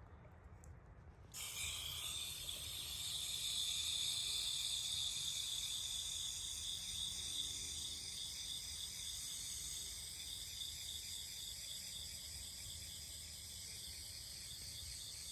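A steady chorus of insects, a dense, high, pulsing chirring that starts suddenly about a second in.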